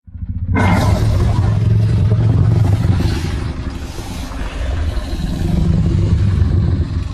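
A loud, low rumbling monster sound effect with a harsh hiss over it. It starts suddenly out of silence, dips midway, swells again and fades near the end.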